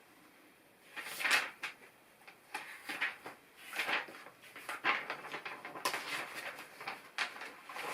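Plastic LEGO pieces being handled, with irregular light clicks and rattles as parts are picked up, sorted and pressed together.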